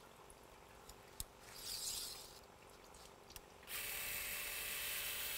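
Surgical power drill starts up about two-thirds of the way in and runs steadily, drilling the hole for a suture anchor through the guide into the tibia. Before it, only a faint click.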